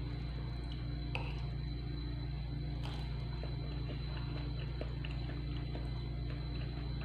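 A metal spoon clicking and scraping now and then against a ceramic bowl of rice, with soft chewing, over a steady low hum.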